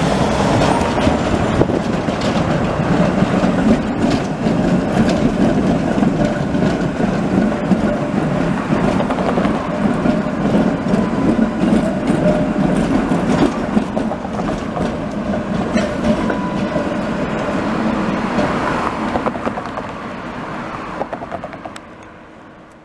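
Tatra T5C5 tram sets running through a street junction, their wheels clattering over the rails with many sharp clicks, and faint steady squeal tones now and then. It fades out near the end.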